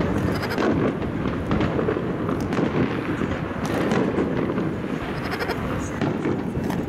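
Aerial fireworks going off in a steady barrage of bangs and crackling.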